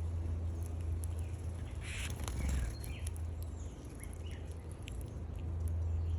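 Small birds at a feeder: scattered short chirps and clicks, with a brief rustle about two seconds in, over a steady low rumble.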